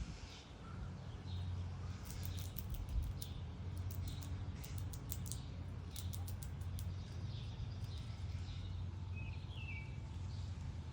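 Birds chirping and calling, with a quick run of sharp ticking clicks about two seconds in that lasts several seconds, over a steady low hum.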